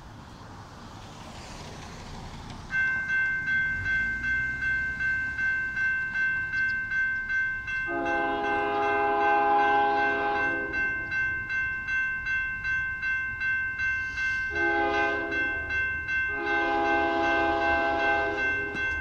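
Railroad grade-crossing warning bell starts ringing a few seconds in, dinging rapidly and steadily as the signals activate and the gates lower. Over it a CSX locomotive's horn blows as the train approaches the crossing: a long blast about eight seconds in, then a short one and another long one near the end.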